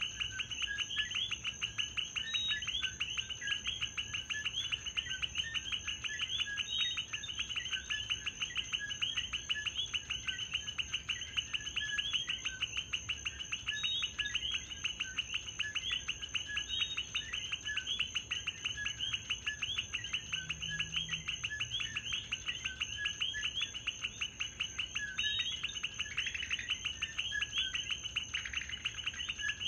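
A chorus of coquí frogs calling over and over: dense, rapid chirping with scattered short call notes, over a steady high-pitched insect tone.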